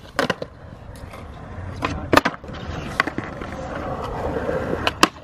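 Skateboards on a concrete skatepark: wheels rolling with a steady rumble, broken by sharp clacks of boards hitting the ground and ledge. The loudest clack comes a little past two seconds in.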